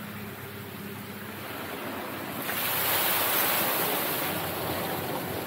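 A water-park tipping bucket dumps its load from the top of a play tower. From about two and a half seconds in there is a sudden loud rush of falling water crashing and splashing into the pool, easing off near the end.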